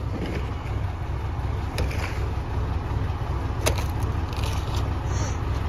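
Rear-loader garbage truck's diesel engine running with a steady low drone, with a couple of light knocks about two and nearly four seconds in.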